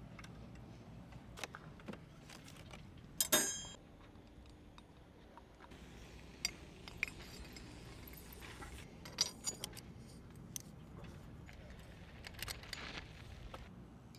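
Metal tools and bike parts clicking and clinking as they are handled during a mountain bike build, with a loud ringing clatter about three seconds in and scattered taps after.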